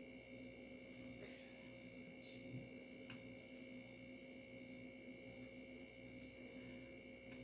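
Near silence: a faint steady electrical hum, with a few faint brief ticks.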